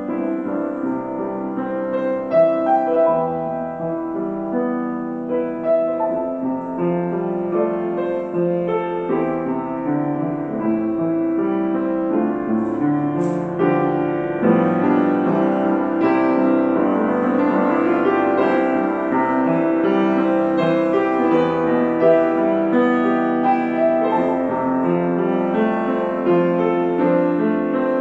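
Solo upright piano playing a slow, lyrical melody over sustained chords, the texture growing fuller and a little louder about halfway through.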